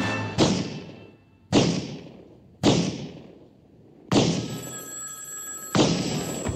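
Five gunshots from a .44 Magnum revolver fired indoors, about a second apart, each followed by a short fading echo. A telephone bell rings between the fourth and fifth shots.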